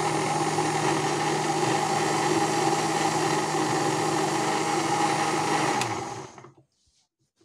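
Electric mixer grinder running steadily with its steel jar, grinding cooked tomato and onion masala into a smooth gravy paste. About six seconds in it is switched off at the knob with a click, and the motor winds down.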